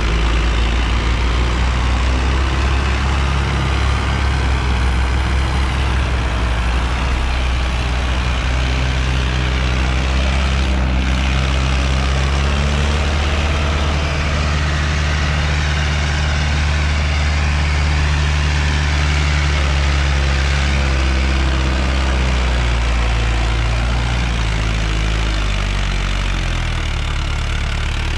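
Mahindra Arjun 555 tractor's diesel engine running steadily under load while pulling a trolley heaped with sand, its pitch shifting a little near the end.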